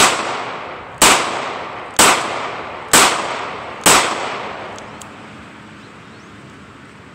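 Five shots from a .38 Special snub-nose Taurus revolver, fired about one a second, each followed by a fading echo.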